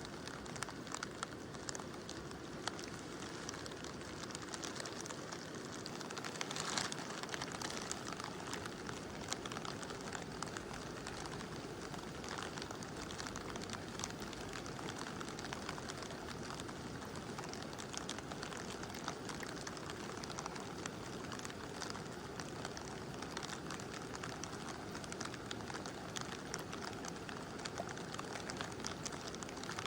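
Steady rush of a mountain river with light rain pattering, many small drop ticks over the flowing water; a brief louder spell of patter about seven seconds in.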